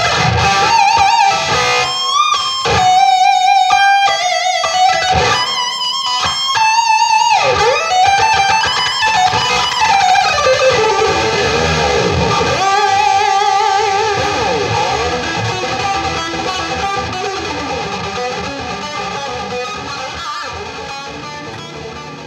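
Electric guitar through a Davis Amplification 2C8 amplifier, boosted by a Tube Screamer pedal, playing lead lines. The notes carry wide vibrato and pitch bends and dives, then a long held note rings and slowly fades away over the last several seconds.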